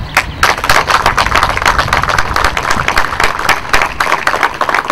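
Crowd applauding: a dense, fast patter of clapping that breaks out suddenly and keeps on for about five seconds.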